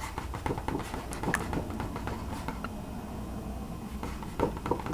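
Close-miked small clicks and taps, irregular and quick, densest in the first couple of seconds and again near the end, over a faint hiss.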